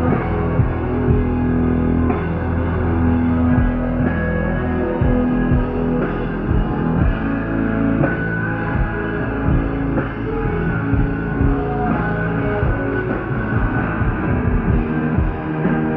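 Punk rock band playing live: distorted electric guitars, bass and drums, with regular drum hits under sustained guitar chords.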